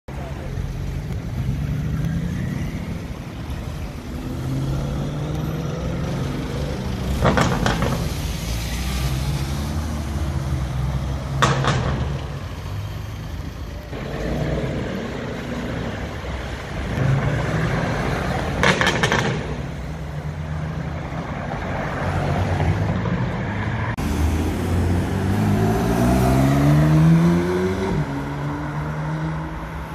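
Several sports-car engines in turn, idling and accelerating away hard. A few short sharp bangs sound along the way, and near the end one engine revs up with a steeply rising note.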